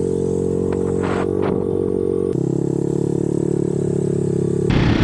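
Off-road vehicle engine running at a steady speed on the dunes, with a few light clicks about a second in. Its pitch shifts abruptly about two seconds in, and it turns rougher and louder near the end.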